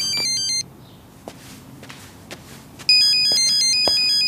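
Mobile phone ringing with an incoming call: a short electronic ringtone melody of quick, high, stepping notes. It stops about half a second in and starts again about three seconds in.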